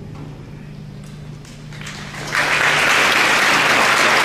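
Audience applauding: a few scattered claps about a second and a half in, swelling into full, steady applause a little past halfway.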